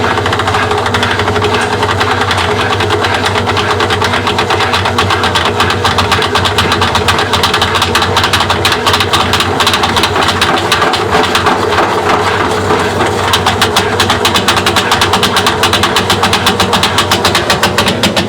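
A running machine making a fast, steady rattling tick, which the owner wonders may be coins caught inside it. The ticking grows sharper about two-thirds of the way through.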